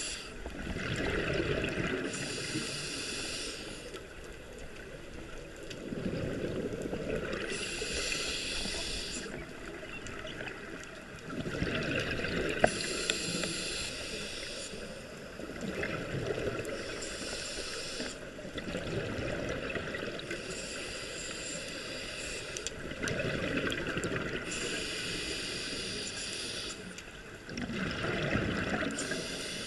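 Scuba regulator breathing heard underwater: each breath is a rushing inhale followed by a burst of exhaled bubbles, with about six breaths evenly spaced at roughly one every five seconds.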